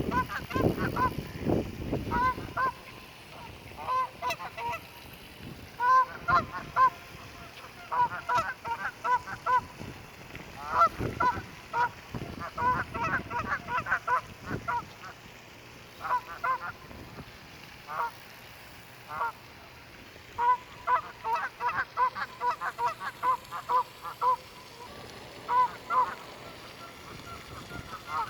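Canada geese honking: runs of short, rapid calls breaking out again and again, several birds calling over one another. A low rumble sounds in the first two seconds.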